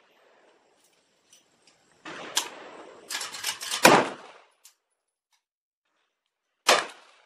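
Chiappa PAK-9 9mm AK pistol firing: a couple of seconds of rattling, crackling noise with several quick sharp cracks, ending in a loud shot about four seconds in, then one more loud shot near the end.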